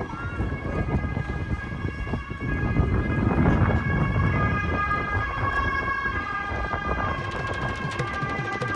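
Background music of long held tones, with drums coming in near the end, over rough low rumbling noise.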